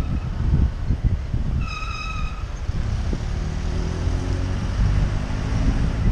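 City street traffic heard from a moving bicycle, with steady wind rumble on the microphone. About two seconds in, a vehicle horn gives one short beep. In the second half a vehicle engine hums underneath.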